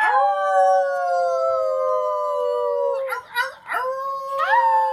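Yorkshire terrier howling: one long howl, falling slightly in pitch, for about three seconds, then a few short broken sounds, and a second howl that rises in near the end.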